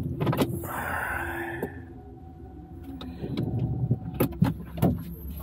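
2024 Toyota RAV4 Hybrid moving slowly on battery power with its petrol engine off: a steady low hum, a rough hiss about a second in, and a few sharp clicks near the end.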